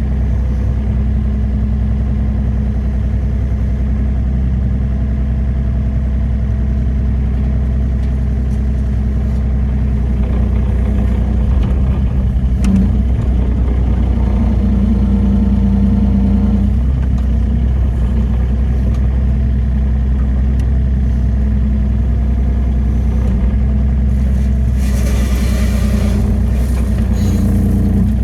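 Wacker Neuson EZ38 mini excavator's diesel engine running steadily, with a single sharp knock about twelve seconds in. In the last few seconds a hissing, scraping noise joins the engine.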